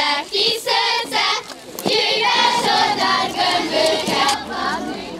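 A group of girls singing a folk song together in phrases, the kind sung while carrying the kisze straw effigy to see off winter. The singing thins out near the end.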